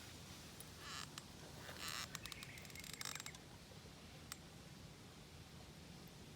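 Quiet outdoor ambience with a bird chirping faintly, a few short soft rustles in the first half, and a single sharp click a little past four seconds.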